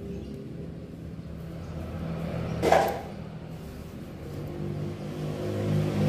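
Low rumble of a motor vehicle engine running in the background, growing louder near the end, with one brief loud scrape about halfway through.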